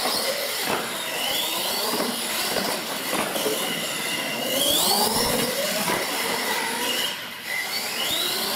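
R/C monster trucks' electric motors and gears whining, the pitch rising as the trucks accelerate, three times over, over a steady rush of drivetrain and tyre noise on concrete.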